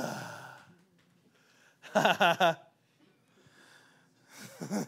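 A man's breath and voice close to the microphone: a loud, breathy exhale at the start that fades over about a second, then a few short murmured syllables about two seconds in and again near the end.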